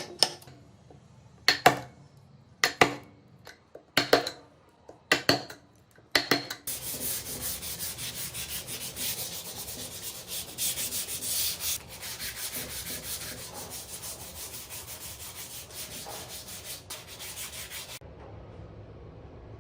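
Wood being sanded or scraped by hand: a dense, rough rubbing that runs for about eleven seconds and then stops abruptly. It is preceded by about six sharp knocks, roughly one a second.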